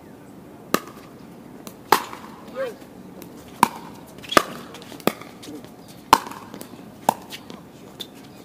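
Pickleball paddles striking the plastic ball in a rally: a string of sharp pops about once a second, with fainter ticks between them and a brief voice exclamation a couple of seconds in.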